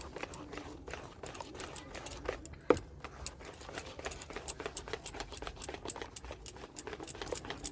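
Cake batter being stirred in a bowl: a utensil clicking and scraping against the bowl in quick, irregular taps, with one sharper knock about two and a half seconds in.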